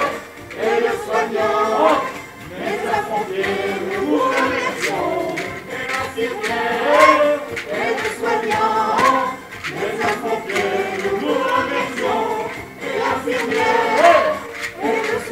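An amateur choir of men and women singing a song together in chorus, in phrases with short breaths between them.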